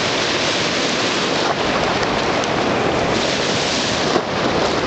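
Steady rushing noise of ocean surf, with no distinct burp or other event standing out.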